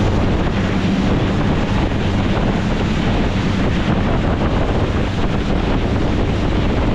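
Heavy wind buffeting the microphone aboard a moving boat, over a steady low engine hum and rushing water.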